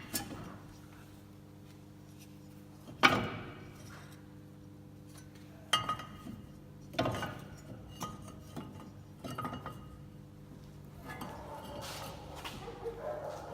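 Metal tools and steel suspension parts clinking and knocking during reassembly of a car's front hub: three sharp knocks, about three, six and seven seconds in, with smaller clicks between, over a faint steady hum.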